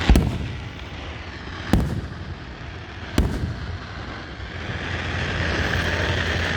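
Aerial fireworks going off: three sharp booms about a second and a half apart in the first few seconds, over a steady hiss.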